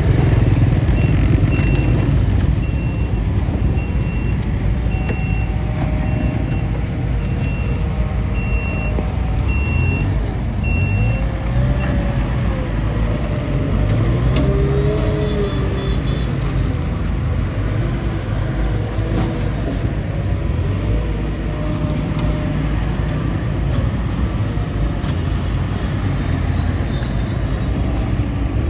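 Bulldozer's diesel engine running continuously, its pitch rising and falling as it works. A reversing alarm beeps about once a second for roughly the first twelve seconds.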